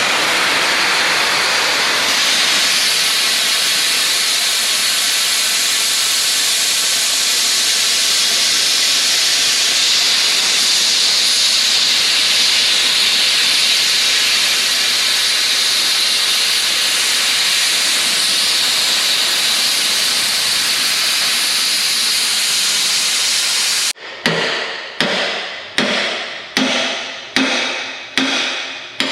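Plasma cutter running steadily with a loud, even hiss as it cuts through the steel of a dozer blade. It stops suddenly near the end, followed by about seven ringing hammer blows on steel, less than a second apart.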